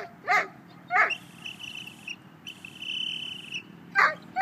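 A dog barking: two barks in the first second, a pause of about three seconds, then two more barks near the end.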